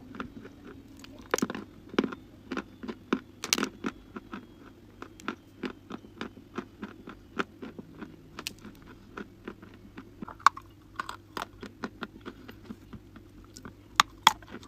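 A person biting and chewing dry chalk close to the microphone: many sharp, irregular crunches all through, with a few louder bites.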